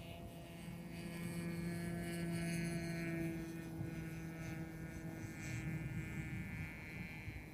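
A small aircraft's engine heard as a steady hum overhead, growing louder to a peak about three seconds in and then fading as it moves away.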